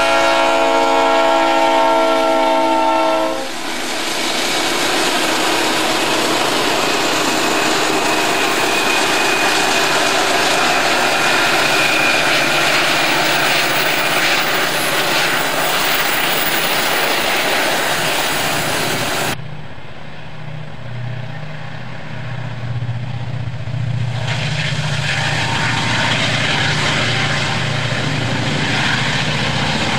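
Diesel locomotive air horn sounding a chord, cutting off about three seconds in, then a freight train rolling by with a steady rush of wheel and rail noise. About two-thirds of the way through the sound changes abruptly to a lower locomotive engine drone, with the rolling noise swelling again near the end.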